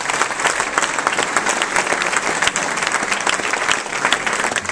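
Crowd applauding, many people clapping steadily.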